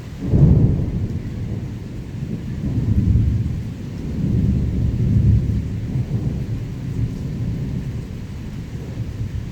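Thunder: a sudden crack about half a second in, then a low rolling rumble that swells twice more and slowly fades, with steady rain underneath.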